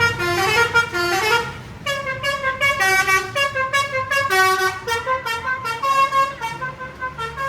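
Bus telolet horn playing a tune of short notes that step up and down in pitch, about three or four notes a second, cutting off suddenly near the end.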